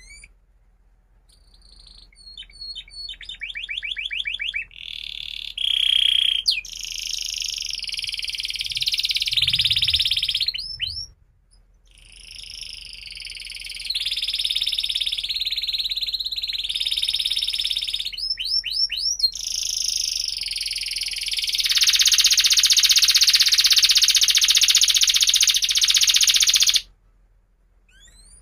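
Domestic canary singing a long, varied song of fast trills and rolls, with a short break about halfway, ending in a loud rolling trill that cuts off sharply near the end.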